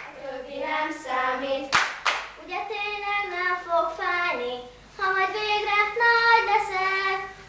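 A small group of children singing a song together without accompaniment, holding long notes. A couple of sharp claps come in the first two seconds.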